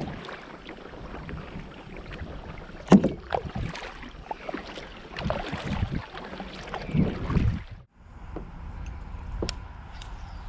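Kayak being paddled: paddle strokes splashing in the water, with sharper knocks and splashes about three and seven seconds in. It cuts off suddenly about eight seconds in, and after that only a steady low rumble with a few light clicks remains.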